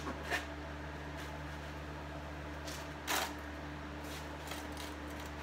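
Vinyl roof covering rustling as it is pulled and stretched by hand over a car roof, briefly just after the start and louder for a moment about three seconds in, over a steady low hum.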